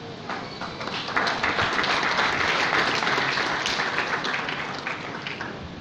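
Audience applauding, building up about a second in and thinning out near the end.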